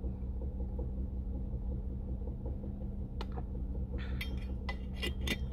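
Vehicle engine idling steadily, heard from inside the cab. One click about three seconds in, then a few light clicks and knocks near the end.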